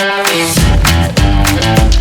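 Background music: pitched instrumental notes over a steady beat, with a heavy bass and drums coming in about half a second in.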